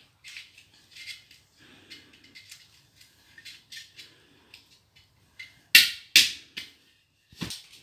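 Small clicks, taps and rustles of money being pushed into the slot of a red piggy bank, then two loud sharp knocks in quick succession about six seconds in and a third, quieter one near the end.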